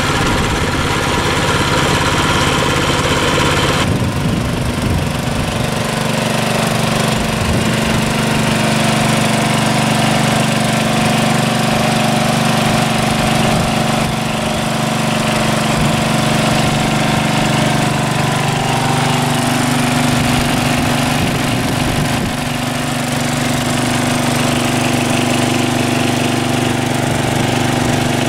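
Small utility engine running steadily at constant speed. Its tone shifts a little about four seconds in and again a little past the halfway mark.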